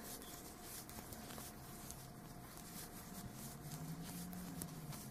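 Faint rustling and light ticks of a crochet hook pulling yarn through stitches, over a low steady room hiss.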